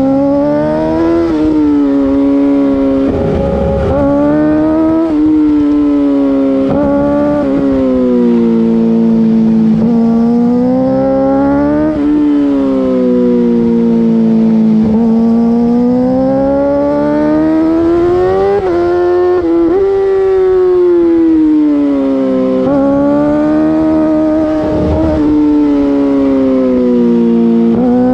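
2008 Yamaha R6's inline-four engine through an Akrapovic full race exhaust, heard from on the bike while riding hard through corners. The revs climb and fall again and again, with quick breaks in the note every few seconds as the throttle is shut and reopened and gears change.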